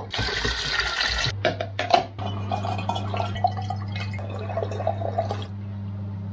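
Liquid poured into and out of a film developing tank at a sink: a loud rushing pour for the first second or so, two knocks, then a gurgling pour that stops about a second before the end. A steady low hum runs underneath.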